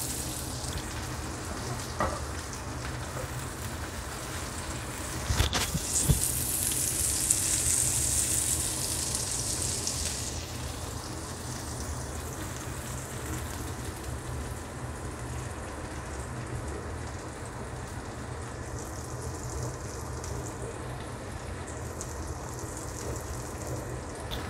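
Sliced shallots, garlic and ginger sizzling in hot oil in a nonstick wok as they are stirred, with a few light clicks of the spatula in the pan. The sizzle gets brighter for a few seconds about a quarter of the way in, then settles.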